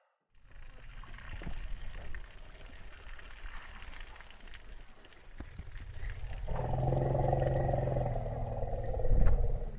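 Elephant giving one long, low call about two-thirds of the way through, over steady low background noise, with a louder burst of sound near the end.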